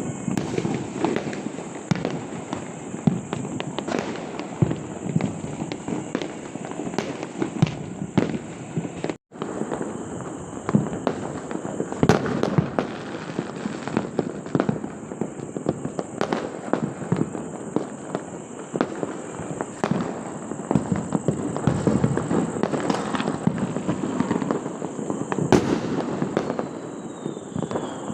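Many fireworks and firecrackers going off together: a constant crackle of bangs and pops, with sharper cracks standing out every second or so. Near the end a faint falling whistle, as of a rocket.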